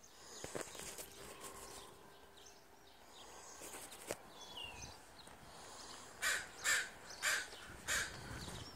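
A crow cawing four times in quick succession near the end, about half a second apart.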